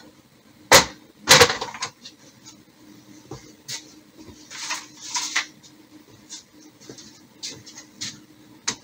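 Plastic rear cover of a Kyocera M5526 colour laser MFP being unlatched and opened: a sharp click of the latch about three-quarters of a second in, then a louder clatter as the cover swings down, followed by lighter clicks and rustles of hands handling the machine.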